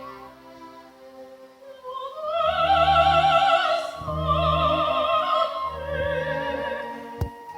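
Operatic singing with wide vibrato on long high notes over an orchestra's sustained low chords. It is quieter for the first two seconds, then swells, and there is one sharp click near the end.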